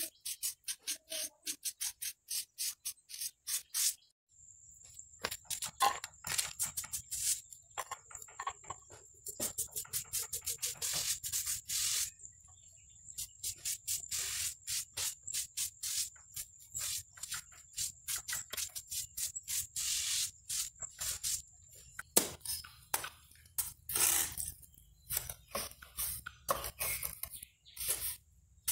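Quick, repeated rubbing and scraping strokes of a brush and a mason's trowel working wet cement over a bowl mould, several strokes a second in runs with short pauses.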